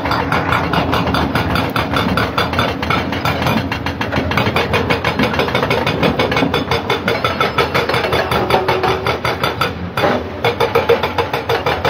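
Excavator-mounted hydraulic rock breaker hammering hard rock in rapid repeated blows, over the running diesel engines of the excavators. The hammering breaks off briefly near the end, then resumes.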